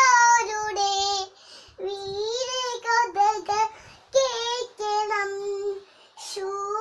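A young child singing a lullaby in short, high-pitched phrases with brief breaks between them, while rocking a baby in a cloth cradle.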